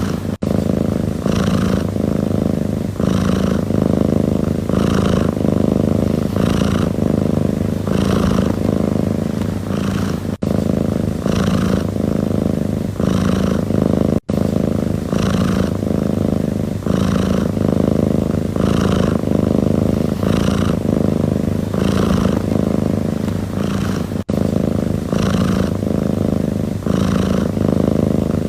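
Domestic cat purring steadily and continuously, pulsing about once a second, broken by a few momentary dropouts.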